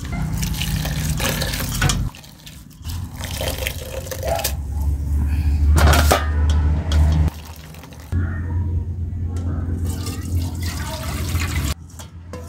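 Wet grated coconut being squeezed and kneaded by hand in water in a stainless steel bowl, squelching and sloshing with dripping liquid, as coconut milk is pressed out. A low hum runs underneath and cuts in and out.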